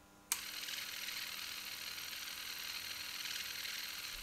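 Small electric motor of a toy six-barrel minigun switched on with a click about a third of a second in. It spins the barrel cluster through a rubber-band belt with a steady, high whirring buzz.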